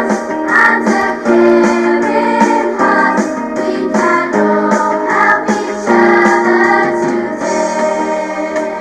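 Music playing: a song with a sung melody over instrumental accompaniment.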